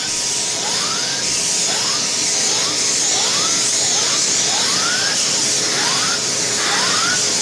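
Aspiron 1200W bagless canister vacuum cleaner running steadily, fitted with its air-driven turbine pet hair brush. A short rising whine repeats about once a second over the steady rush of air.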